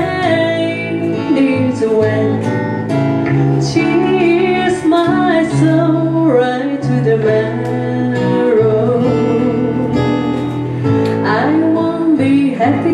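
Live band music: a woman singing lead over strummed acoustic guitar and bass guitar.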